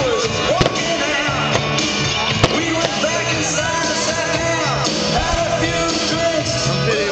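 Rock music with singing, with a few sharp firework bangs going off over it.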